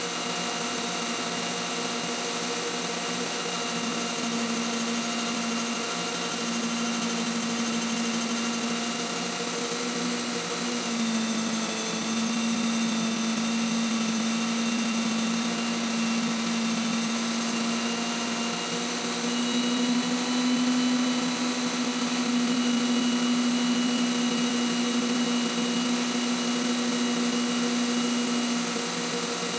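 Waldown tool post grinder running on a lathe, its wheel internally grinding a collet chuck's bore under coolant while the lathe turns the work: a steady hum with several high whining tones.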